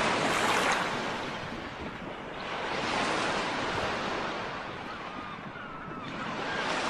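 Ocean surf washing in and drawing back in slow surges, swelling near the start, again about three seconds in, and once more near the end.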